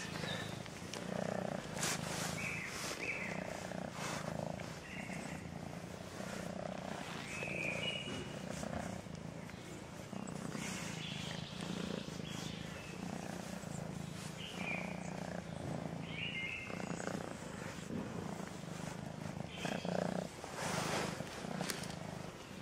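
Cat purring while being stroked by hand, a steady low rumble that swells and dips with each breath.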